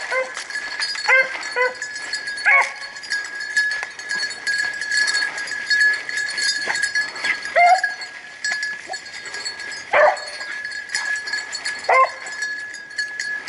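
Rabbit-hunting beagles giving scattered short, high yelps of bay a second or a few seconds apart as they work a rabbit's trail.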